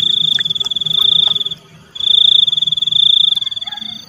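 A cricket trilling close by: one high, steady, rapidly pulsed trill that breaks off for a moment about a second and a half in, then starts again and stops near the end.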